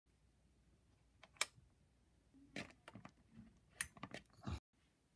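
Faint, scattered small clicks and light knocks, a few in all, from a table lamp's turn-knob switch being clicked and handled as the lamp is switched on.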